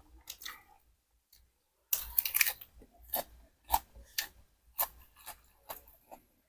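Close-miked chewing of khanom jeeb (Thai pork dumplings): a dense cluster of mouth sounds about two seconds in, then steady chewing with sharp, wet mouth clicks about twice a second.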